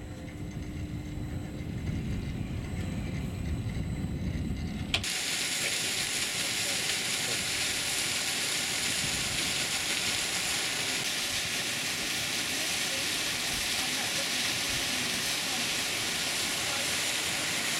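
A low rumble, then after a cut about five seconds in, the steady hiss and splash of a thin glacial meltwater waterfall falling onto rocks.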